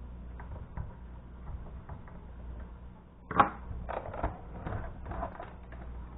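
Scattered clicks and knocks from a computer monitor's plastic housing being handled and fitted together, with a sharp knock about three and a half seconds in, over a steady low hum.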